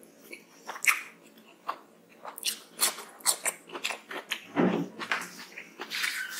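Close-up mouth sounds of someone eating rice and curry: irregular wet chewing, lip smacks and small clicks. One duller, lower sound stands out about three-quarters through.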